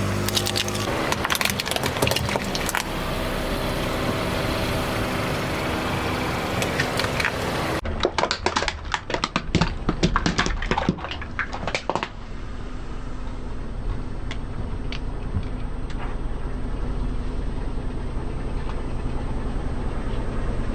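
Car engine running steadily while its tyres roll over objects. There are scattered snaps at first, then a dense run of crackling and crunching from about 8 to 12 seconds as things are crushed, then a low steady rumble with a few ticks.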